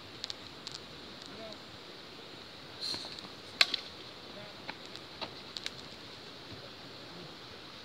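Scattered sharp slaps and snaps from two pencak silat practitioners sparring, with the loudest snap about three and a half seconds in, over a steady faint hiss.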